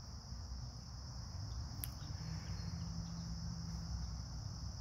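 Steady high-pitched chorus of crickets and other insects over a low outdoor rumble, with a faint click about two seconds in.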